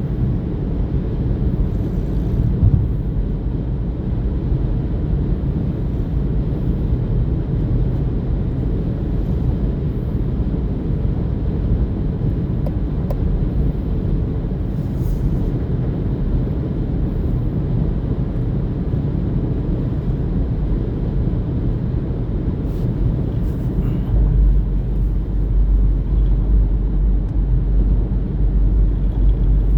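Steady low rumble with no rhythm, deepening about three-quarters of the way through.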